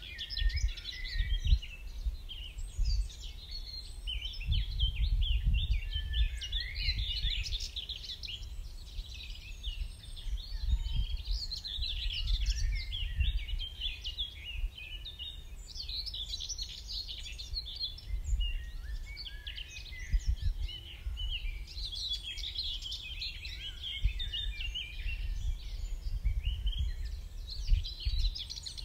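Dawn chorus of many songbirds singing and chirping at once, overlapping all the way through, with gusts of wind rumbling on the microphone.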